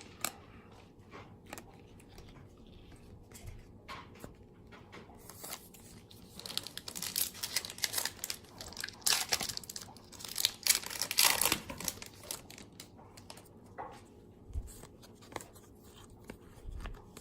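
A foil baseball card pack wrapper being torn open and crinkled, in a dense burst of rustling that is loudest in the middle. Light clicks and taps of cards being handled come before and after it.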